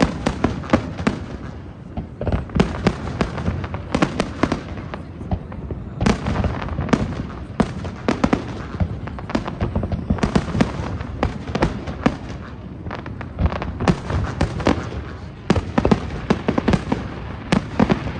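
Fireworks display: a steady barrage of shell bursts and crackling, with many sharp bangs coming irregularly over a constant low rumble.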